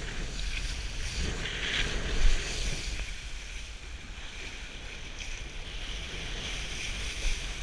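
Wind buffeting the microphone of a camera on a kitesurfer, with water rushing and hissing as the kiteboard skims over choppy water; a louder splash about two seconds in.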